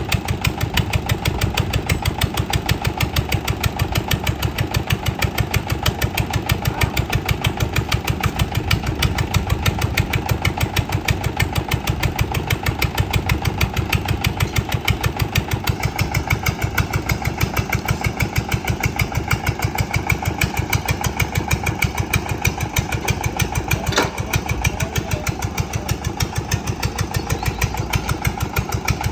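An engine running steadily at an even speed with a rapid, regular pulsing beat.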